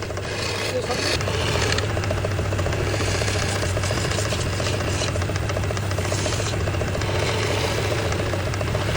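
A motor running steadily with a low hum and a dense rattle.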